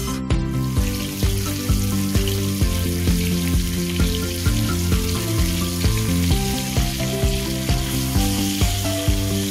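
Asparagus sizzling and frying in oil on a hot TemboTusk Skottle griddle, the sizzle starting a little under a second in. Background music with a steady beat plays throughout.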